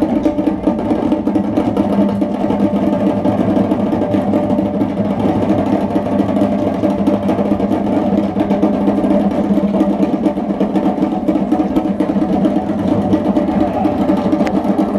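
An ensemble of hand drums playing a fast, dense rhythm for African dance, with strokes packed closely together.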